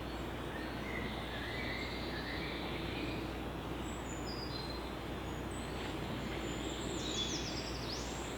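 Woodland ambience: a steady background rush with several small birds singing, short high chirps throughout and a quick run of falling high notes near the end.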